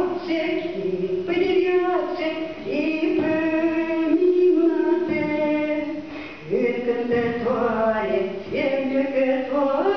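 A woman singing a slow melody into a microphone, with long held notes and glides between them.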